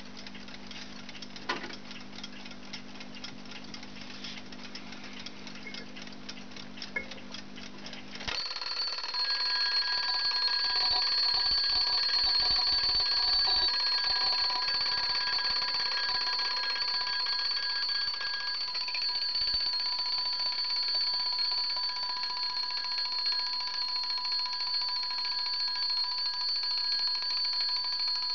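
Meister Anker twin-bell alarm clock ticking. About eight seconds in, the alarm goes off and the bells ring steadily and continuously, a loud high ring that lasts about twenty seconds.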